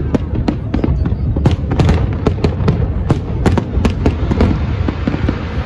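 Fireworks going off in rapid bangs and cracks, several a second, over a steady low rumble. The bangs thin out near the end.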